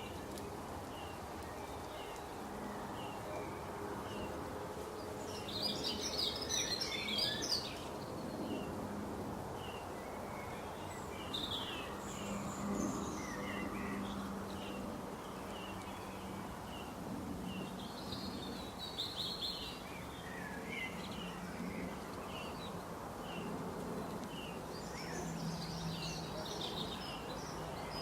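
Wild birds calling over steady outdoor background noise: a short high chirp repeats about once a second, with louder bursts of busier song four times.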